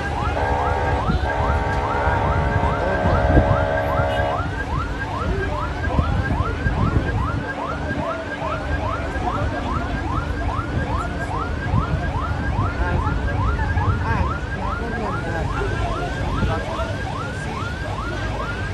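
Convoy siren wailing on a fast yelp, a rising sweep repeated about two and a half times a second. A long steady horn blast sounds over it for roughly the first four seconds, with traffic rumble underneath.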